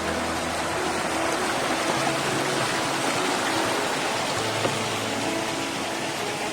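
Steady rush of water from a waterfall and its rocky stream, under soft background music of held low notes that shift every second or two.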